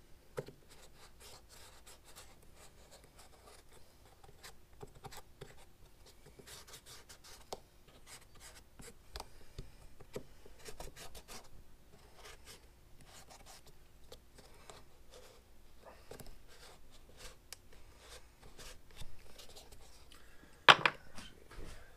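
Pencil scratching on a flip-flop's foam sole, tracing around a template in many faint short strokes. A sharp knock comes near the end.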